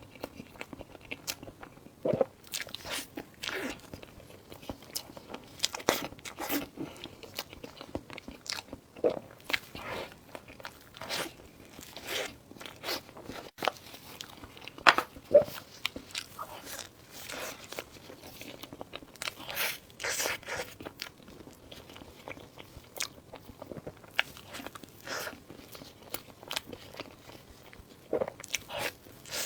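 Close-miked eating: a person biting and chewing food, with irregular short sharp mouth clicks and smacks throughout.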